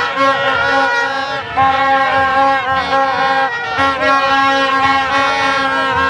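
A horn blown in one steady, held note, breaking off briefly a few times and dipping slightly in pitch now and then.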